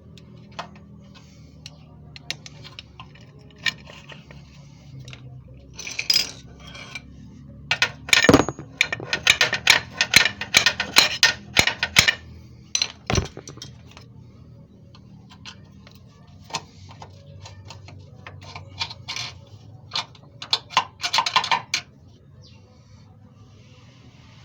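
Metal hand tools clicking, clinking and knocking against car parts while an engine mount is being fitted. Scattered clinks, a dense run of rapid clicks in the middle, and two sharp knocks.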